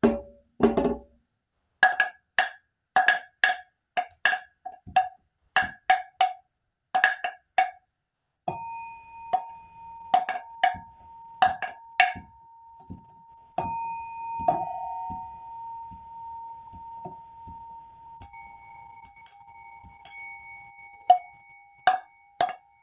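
Hand-struck percussion played in an irregular rhythm: short, dry, pitched knocks like a wood block. About eight seconds in, a struck bell begins to ring on with a long, steady tone under further knocks, and later a second, lower bell tone rings for several seconds.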